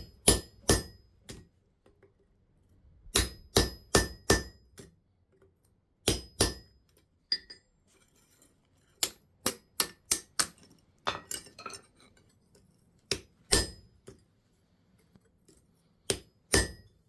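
Hammer blows on a handheld blacksmith's chisel, driving its edge into metal stock on the anvil. Sharp ringing strikes come in short runs of two to five, with pauses between.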